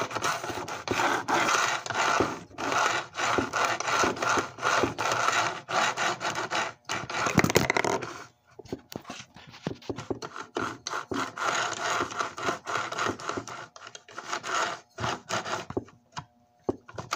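Quick back-and-forth rubbing and scraping strokes as the chassis of a flood-damaged Lionel 1065 toy train locomotive is worked by hand on the track, its motor having failed to run under power. After about eight seconds the strokes become quieter and more scattered.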